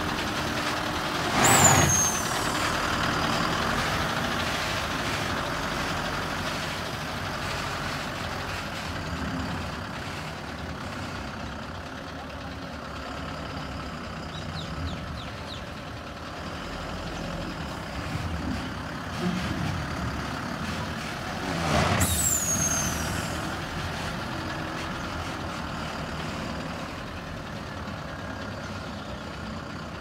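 Eicher tipper truck's diesel engine running as the truck moves off, slowly getting quieter. Two sharp air-brake hisses, each with a falling high squeal: one about a second and a half in and one about twenty-two seconds in.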